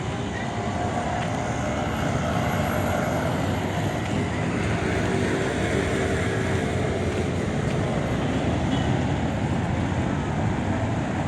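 Steady road traffic noise from vehicles running along a busy avenue, with a faint engine hum in it that gets a little louder about two seconds in.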